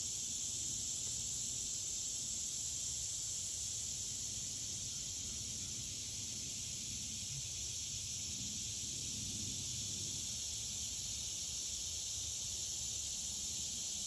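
A steady, high-pitched, unbroken chorus, which the uploader takes for tree frogs singing their rain songs, over a low rush of breeze in the trees.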